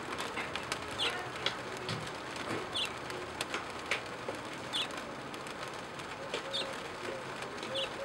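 A bird chirping: about five short, high chirps spaced every couple of seconds, over steady background noise with scattered small clicks.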